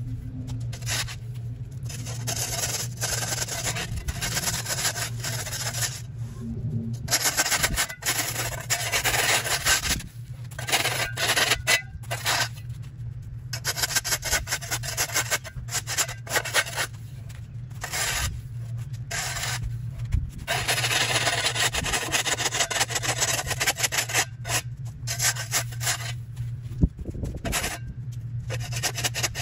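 Repeated scraping strokes of a long-handled hand tool against a concrete walkway as overgrown grass and dirt are cleared from its edge, each stroke a rasping burst with short breaks between. A steady low hum runs underneath.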